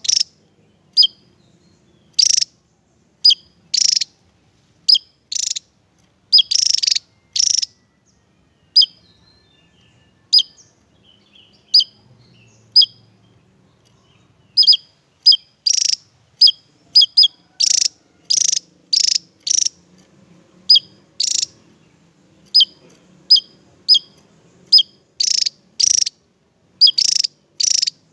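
Javan tesia singing: runs of short, sharp, high notes repeated in quick succession, thinning out to a few scattered notes in the middle before picking up again.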